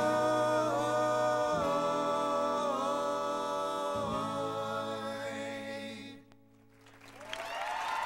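Several men singing the song's closing a cappella harmony, holding chords that change about every second and a half over a steady low note, then fading out about six seconds in. After a brief hush, audience applause begins near the end.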